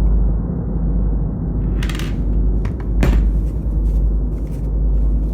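A steady low rumble, with a brief click about two seconds in and a sharper clack about three seconds in.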